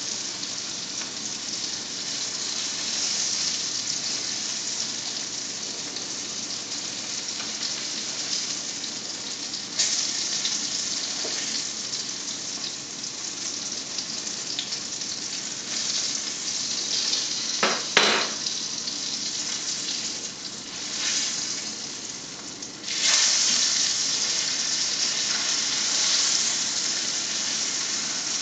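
Butter sizzling and spitting in a frying pan as breaded pike fillets fry, a steady crackling hiss. A single sharp clink comes about eighteen seconds in, and the sizzle turns suddenly louder a few seconds later.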